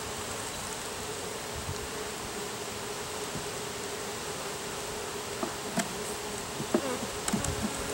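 Honeybees from an open nuc box humming steadily, the even hum of a calm colony. In the last couple of seconds a few small knocks and scrapes sound as a hive tool pries a wooden frame loose.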